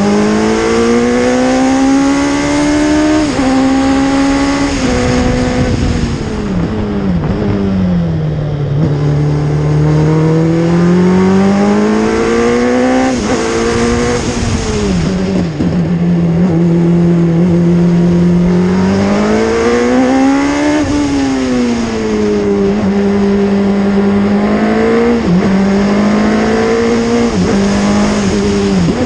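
Hayward open-wheel race car's engine heard from the cockpit, rising in pitch under acceleration and dropping sharply at each upshift, then falling away under braking and downshifts, over steady wind noise.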